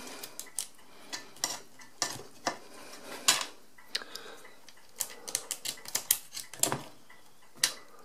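Irregular light metallic clicks and clinks as the pinwheels of an Original-Odhner Model 239 pinwheel calculator are fed one at a time onto their shaft and knock against the neighbouring wheels.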